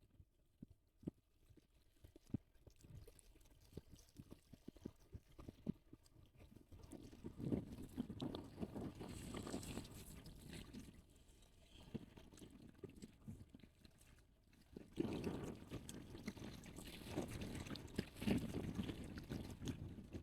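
Wind buffeting the microphone: low, gusty rumbles that come and go, stronger in the second half, after a few faint knocks early on.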